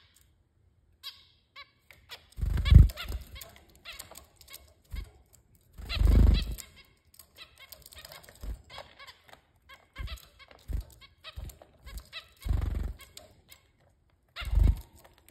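Zebra finches giving short nasal, honking calls and pecking at leaves. Four louder bursts of wing flutter come as the birds flap about the dish.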